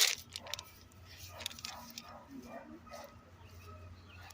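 A sharp click right at the start, then a dog barking repeatedly, several short barks in quick runs, over a low steady hum.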